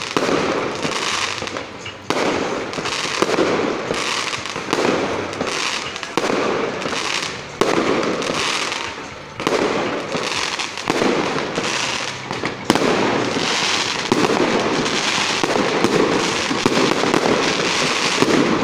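Aerial fireworks shells bursting overhead one after another, a new bang about every one and a half to two seconds, with a steady noisy crackle that never dies away in between.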